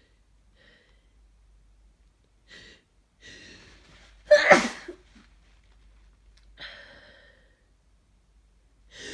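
A person with a congested head cold sneezing once, forcefully, about four seconds in, after a few sharp breaths in. A softer breath out follows a couple of seconds later.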